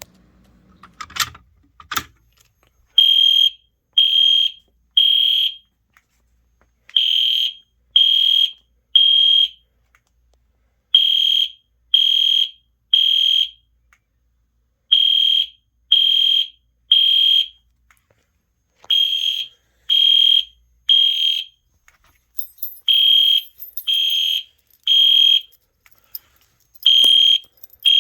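Two sharp clicks, then an EST Genesis horn strobe sounding a high-pitched horn in the temporal-3 evacuation pattern: three short blasts about a second apart, a pause, then three more, repeating.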